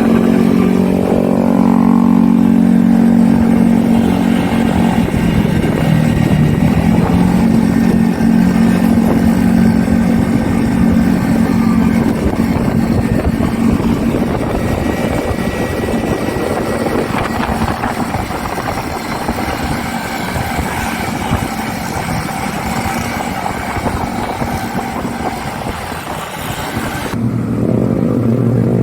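Classic Vespa scooter's two-stroke engine running steadily under way, its pitch shifting a few times, with an abrupt change in the sound near the end.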